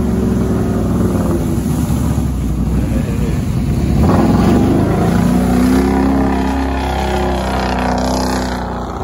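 An ATV engine running under throttle while riding, its pitch rising about four seconds in as it speeds up, then holding fairly steady.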